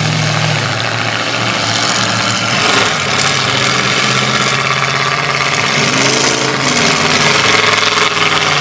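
Demolition derby car engines running steadily under load while two cars are locked together, trying to pull apart; one engine revs up and back down about six seconds in.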